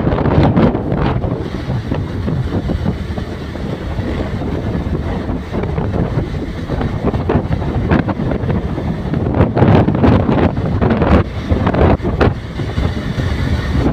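Wind buffeting the microphone of a moving motorcycle in uneven gusts, over the steady noise of the bike and road.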